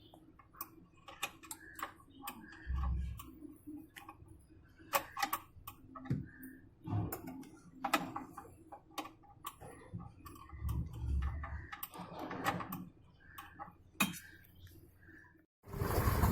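Irregular clicks, taps and a few dull low thumps from hand and tool work on a top-load washing machine's gearbox and lever. About fifteen seconds in it cuts abruptly to a louder, steady noise.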